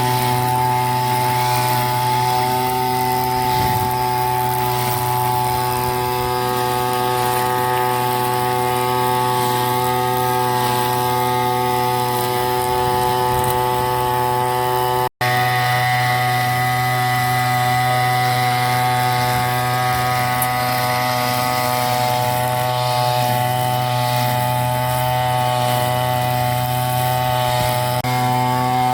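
Brush cutter (grass-cutting machine) engine running steadily at high speed while cutting grass. The sound drops out for a split second about halfway through.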